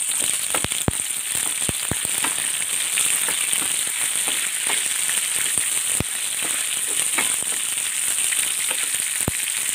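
Onions, green chillies, garlic and tomato sizzling in hot oil in a steel pan while being stirred with a wooden spatula. A steady hiss with scattered sharp clicks.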